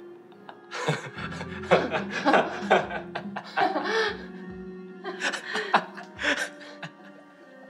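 A man and a woman laughing together over soft, sustained background music; the laughter starts about a second in and dies away near the end.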